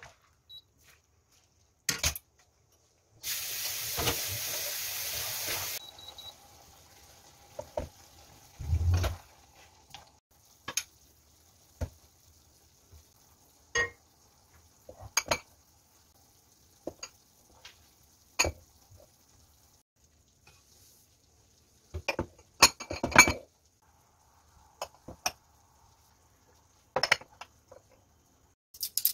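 Ceramic bowls, dishes and cutlery being handled and set down: scattered sharp clinks and knocks, several in quick succession near the end. Near the start there are a few seconds of sizzling from the stir-fry pan.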